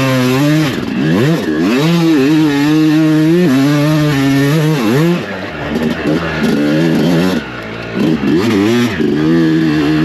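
Yamaha YZ250 two-stroke single-cylinder dirt bike engine revving up and down under throttle, held high for a few seconds, easing off and dropping lower past the middle, then revving up again near the end.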